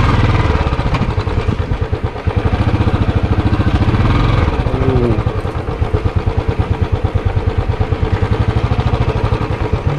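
Motorcycle engine running at low speed with a steady, even pulse as the bike picks its way over a rough, stony dirt track.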